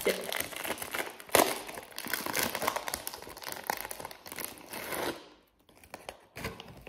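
Crinkly plastic snack wrapper rustling as it is handled: a dense run of crackles with a sharp rustle about a second and a half in, then a short pause and one more rustle near the end.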